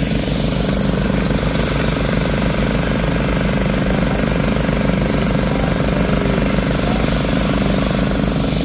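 Small gasoline engines on floating gold suction dredges running steadily at an even speed.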